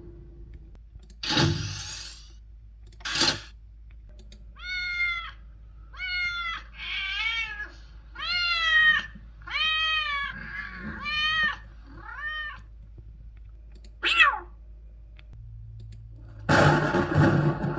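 A cat meowing about seven times in a row, each meow rising and then falling in pitch, followed by one short, sharp cry that drops in pitch. Two short hissing bursts come before the meows, and a louder noisy rush starts near the end.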